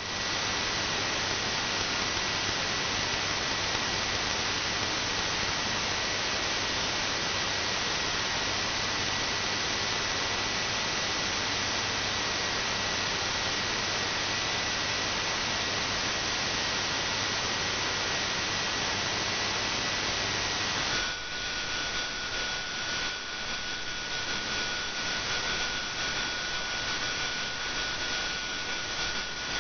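Shortwave receiver tuned to a DRM digital broadcast, its audio a steady hiss with a thin high whistle and a low hum. About 21 seconds in, the whistle drops to a lower pitch, the hum stops and the hiss turns uneven and fluttering.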